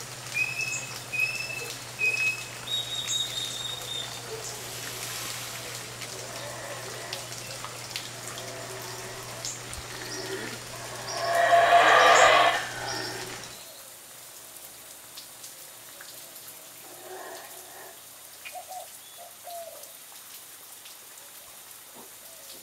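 Birds calling with short, clear whistled notes. About halfway through comes one loud, rough animal call about two seconds long, then quieter bird calls.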